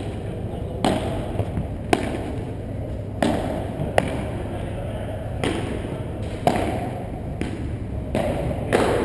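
A padel rally: the ball is struck by paddles and bounces off the court and walls. Sharp pops come at an uneven pace of about one a second, each followed by a short ringing echo.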